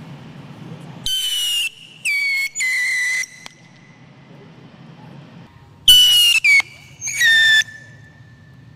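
Whistling bottle rockets in flight: three shrill whistles, each dropping slightly in pitch, about a second in, then three more about six seconds in.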